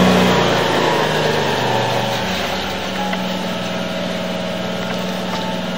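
A small engine running steadily with a low hum. The level eases off over the first two to three seconds, then holds.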